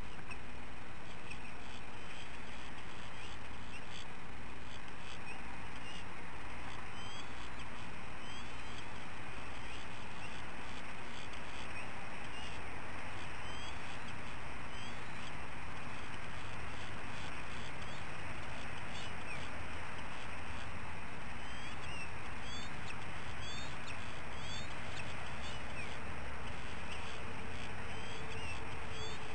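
Steady outdoor background hiss picked up by the nest camera's microphone, with faint, quick, high bird chirps scattered throughout.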